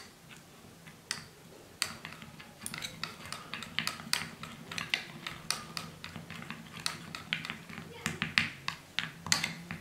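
A spoon stirring a small amount of ginger juice, licorice root powder and honey into a paste, clicking and scraping irregularly against its dish several times a second.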